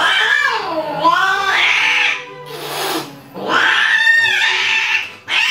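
Domestic cats yowling while mating: two long caterwauls that waver up and down in pitch, with a short hiss between them.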